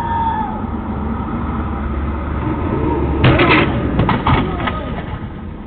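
A car driving past on the street, heard through a security camera's low-quality, muffled microphone: a steady low rumble that grows louder, with a few sharper noises about three seconds in as it passes closest.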